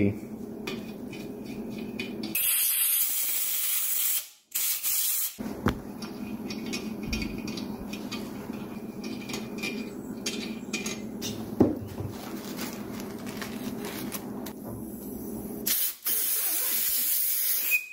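Compressed-air blow gun blasting out the main-cap bolt holes of a Mazda 1.8 BP engine block to clear leftover water and WD-40, heard as a hiss of air: two blasts a few seconds in, the second one short, and a longer blast near the end.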